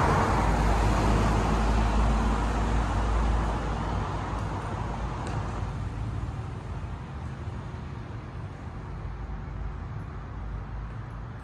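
A road vehicle moving off, its engine and tyre noise fading steadily, with a heavy low rumble in the first few seconds. No siren is sounding.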